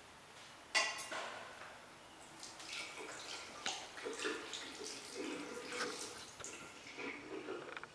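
Water from a tap splashing into a sink. It starts suddenly about a second in, goes on unevenly with scattered splashes, and cuts off at the end.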